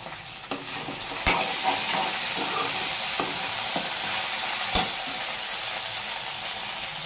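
Okra pieces frying and sizzling in a steel kadai while a steel spoon stirs and tosses them, scraping the pan. The sizzle grows louder about a second in, and there are two sharp clinks of the spoon against the pan, one about a second in and another near five seconds.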